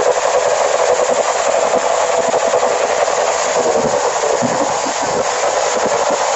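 Several motorcycle engines revving hard together, pouring out exhaust smoke: a loud, continuous, rasping din whose pitch keeps rising and falling.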